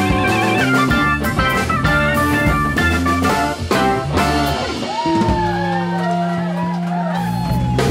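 Live rock band playing an instrumental passage on keyboard, bass guitar, electric guitar and drums. About five seconds in, the drums mostly drop out under a held low note while high notes slide and bend up and down; the full band comes back in at the very end.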